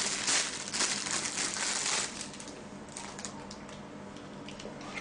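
Clear plastic bag crinkling as protective glasses are unwrapped from it. The crinkling is loud for about the first two seconds, then drops to a few light rustles and clicks.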